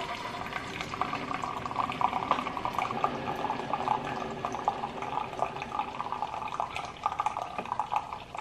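Keurig single-serve coffee maker brewing into a mug: hot water and coffee gurgling and sputtering out of the spout in a dense run of irregular crackles, thinning out near the end.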